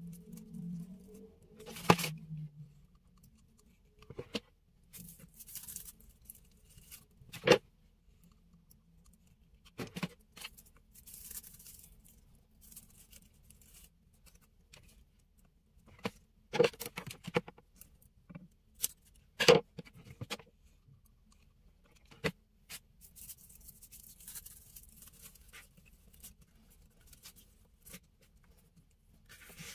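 Sheet of paper rustling and crinkling as hands smooth and press it down, with several sharp clicks scattered through.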